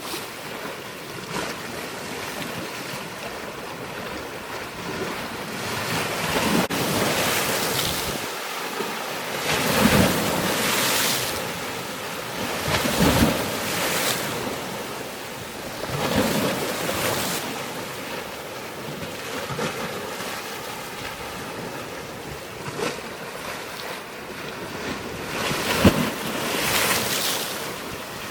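Rushing water and wind, swelling and easing in surges several times, with a few sharp splashes and wind buffeting the microphone.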